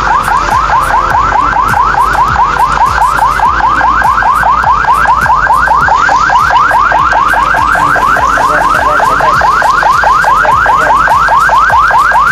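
Emergency siren in rapid yelp mode: quick rising whoops, about five a second, repeating without a break.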